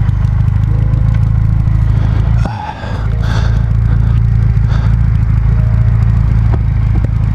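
Motorcycle engine running steadily at low speed, briefly dipping about two and a half seconds in.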